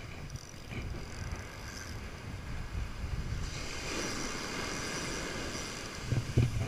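Wind buffeting the microphone over the wash of surf, while a large spinning reel is cranked to bring in line on a hooked fish. A few louder knocks come near the end.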